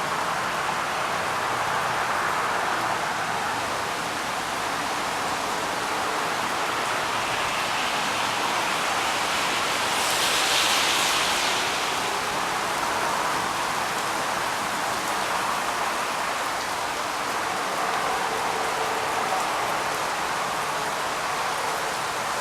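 Rain falling steadily, an even hiss, with a brief louder, brighter swell about ten seconds in.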